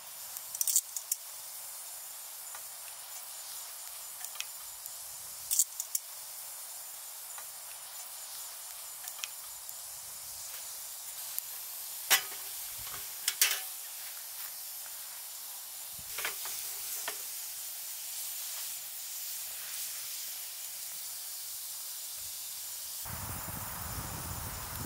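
Wood campfire burning: a steady hiss with scattered sharp crackles and pops, the loudest two about 12 and 13 seconds in. About 23 seconds in, a lower rumbling noise joins.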